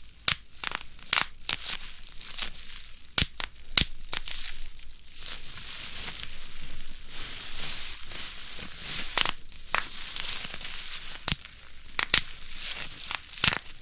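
Plastic bubble wrap squeezed and crushed by hand: irregular sharp pops of bursting bubbles over steady crinkling of the plastic sheet.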